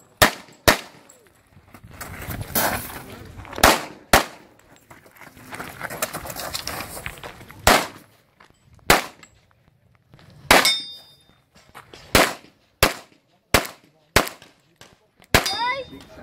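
Pistol shots fired in quick pairs about half a second apart, about a dozen in all, with pauses between groups as the shooter moves between positions. A few shots are followed by a brief metallic ring.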